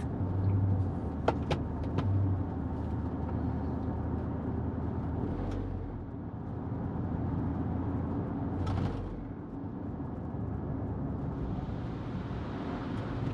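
Car driving slowly, heard from inside the cabin: a steady low engine and tyre rumble, with a few sharp clicks in the first two seconds and a brief rushing sound about nine seconds in.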